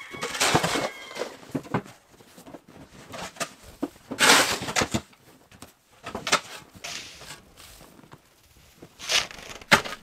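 Metal snow shovel scraping and scooping snow off a packed floor, in bursts of about a second near the start, about four seconds in and near nine seconds, with a sharp knock just before the end.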